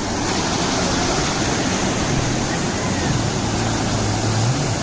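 Surf washing and breaking onto the beach, with a jet ski's engine humming under it; the engine's pitch rises and falls a few times near the end as it is ridden through the waves.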